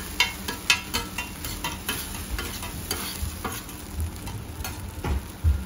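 Fujinomiya yakisoba noodles and cabbage sizzling on a hot iron griddle as two metal spatulas toss and scrape a ten-serving batch, with sharp clacks of the spatulas on the plate, several in the first second, and a few dull knocks near the end.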